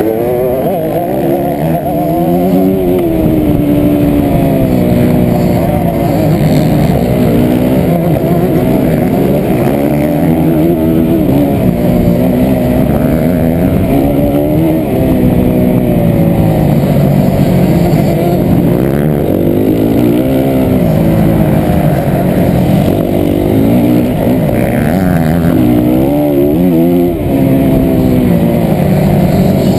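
Dirt bike engine running hard under load, its pitch rising and falling over and over as the throttle opens and closes and the gears change.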